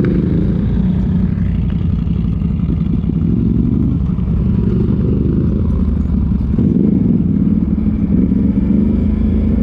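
ATV engine running, its note rising and falling a little as the throttle changes.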